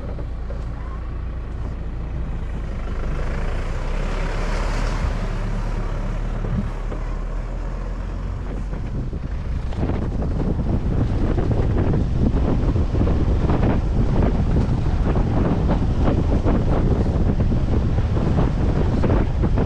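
Wind buffeting the microphone over a steady low rumble, turning louder and gustier about halfway through.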